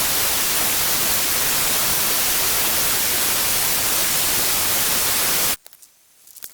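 A loud, steady hiss like static that cuts off abruptly about five and a half seconds in, leaving only a few faint clicks.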